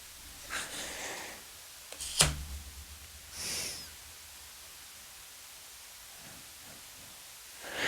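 Tarot cards being handled in a quiet small room: a few short soft swishes of card sliding on card and one sharp tap about two seconds in, then only faint room tone.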